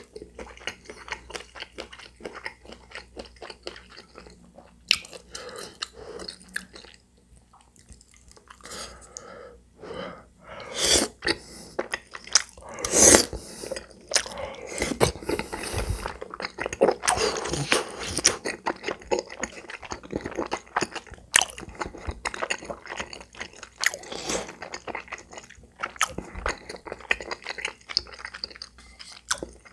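Close-miked chewing of chewy rice cakes in cream sauce: wet mouth clicks and smacks, louder and busier around the middle.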